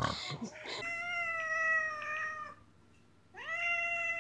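A domestic cat yowling: one long drawn-out call held steady in pitch, then after a short pause a second call that rises into the same note and holds it.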